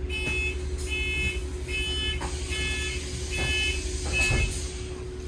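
London bus door-warning beeps sounding six times, about one beep a second, as the doors close, over the steady low rumble of the bus engine.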